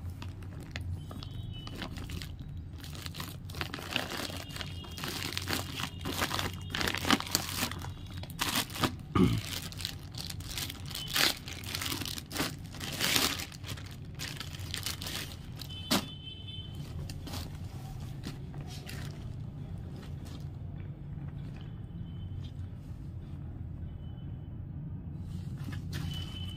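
Plastic courier mailer being torn open and handled, with the clear plastic bag around the shirt crinkling: a run of sharp rips and crackles, busiest between about four and fourteen seconds in. After about sixteen seconds the handling dies down and only a low steady hum is left.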